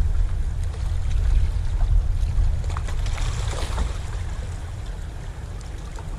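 Sea water lapping and splashing against the boulders of a rock seawall, under a steady low rumble.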